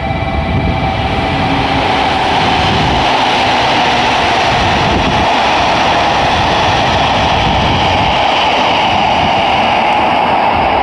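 A JR Kyushu 821 series electric train passes through a station at speed. It makes a steady rushing of wheels and running gear on the rails, growing louder about two seconds in as the cars reach the platform, then holding at that level.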